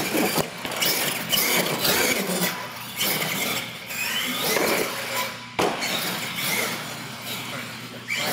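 An R/C monster truck's electric motor whines up and down in pitch with bursts of throttle. There is one sharp knock about five and a half seconds in.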